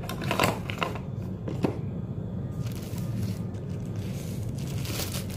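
Plastic bag and packaging crinkling and rustling as they are handled, with a few sharp crackles in the first two seconds and more rustling near the end, over a steady low hum.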